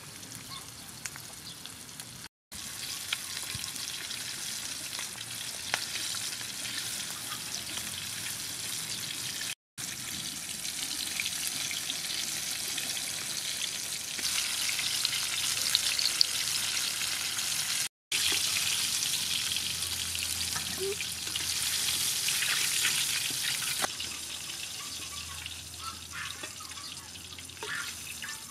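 Battered chicken pieces deep-frying in a large wok of hot oil: a steady, crackling sizzle of bubbling oil, broken by three very short silences.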